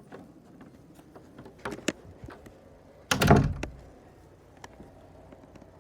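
A few light clicks, then a loud door thud about three seconds in as a house door is moved open or shut.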